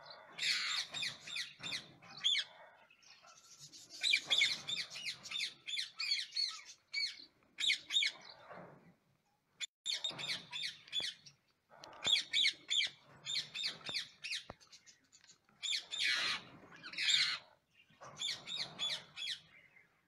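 Rose-ringed parakeets calling in a nest box: bouts of rapid, repeated chattering calls, each lasting a second or two, with short pauses between them.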